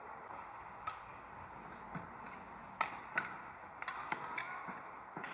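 Sharp, irregular taps of a badminton shuttlecock and rackets, with a brief rubber shoe squeak on the court mat, over a low steady arena murmur.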